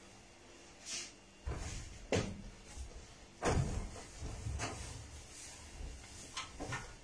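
Kitchen handling sounds: an irregular series of knocks and bumps as things are moved about at the counter and sink, the loudest about three and a half seconds in.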